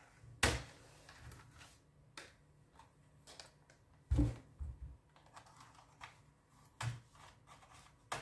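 Scattered plastic clicks and taps as a plastic pry tool works around the keyboard of an Asus Eee PC netbook, prying it up from the case. A few louder knocks come about half a second in, around four seconds in and near seven seconds.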